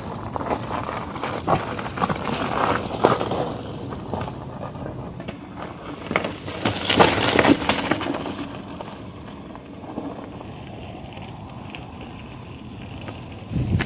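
Mountain bike riding over a gravelly dirt trail: tyres crunching and the bike clattering, loudest about seven seconds in.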